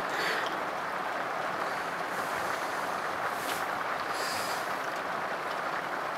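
Heavy rain falling steadily on a motorhome's roof and windshield, heard from inside as an even hiss, with a few brief louder swells of spatter.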